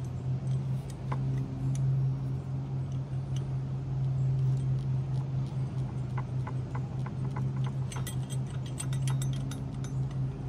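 Light metallic clicks and ticks of screws and a throttle bracket being handled and threaded in by hand, coming thickest in the second half, over a steady low hum.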